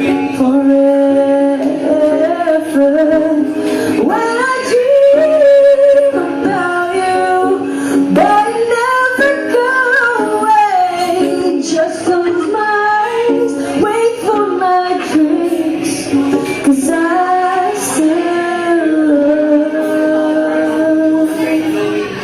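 Female lead vocalist singing a pop ballad live, holding long, wavering notes and sliding runs between them, over a steady accompaniment.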